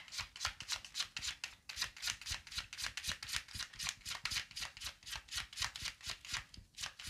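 A deck of tarot cards being shuffled by hand, with a quick, even run of card-on-card slaps at about four a second.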